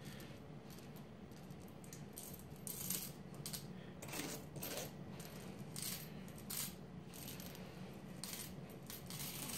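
Copper pennies dropped a few at a time into a glass jar that already holds a pile of pennies: scattered bright clinks of copper on copper, a handful every second or so.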